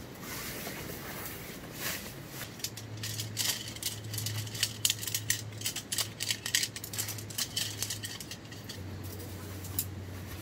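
Tent poles clicking and clattering, with the rustle of the tent's carry bag and fabric, as a canvas tent is unpacked and laid out; the clatter is busiest in the middle. A low steady hum runs underneath from about three seconds in.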